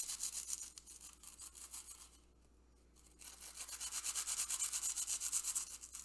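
Cheetos being ground down into dust in quick, even rasping strokes. The strokes pause for about a second roughly two seconds in, then start again.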